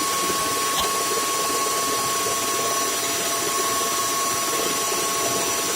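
Vacuum cleaner running steadily: an even rushing noise with a steady motor whine.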